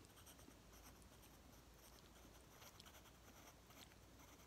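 Faint scratching of a pencil drawing on paper, in short light strokes.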